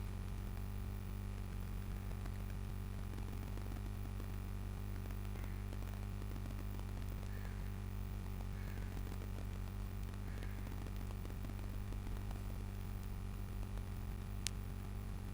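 Steady low electrical hum and hiss of the recording setup, with a single sharp click about a second before the end.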